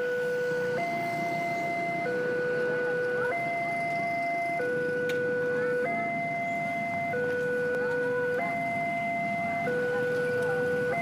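Railway level-crossing warning alarm: an electronic two-tone signal from the crossing signal's horn loudspeaker, switching between a lower and a higher tone about every second and a quarter, the warning that a train is approaching. Motorcycle engines run underneath.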